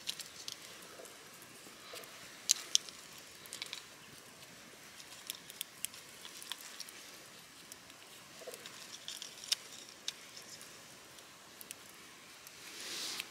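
Small twig campfire crackling faintly, with scattered sharp pops at irregular intervals, and a brief soft rustle near the end.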